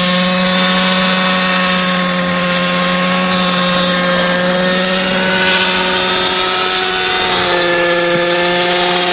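Unmanned model helicopter's engine and rotor running steadily in flight, a constant high-pitched drone over a low hum; the pitch drops slightly about three-quarters of the way through.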